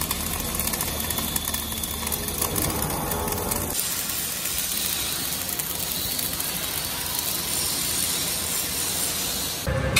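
Arc welding on steel: the arc's steady crackling hiss. The sound changes abruptly about four seconds in as another weld takes over, then becomes a more even, brighter hiss.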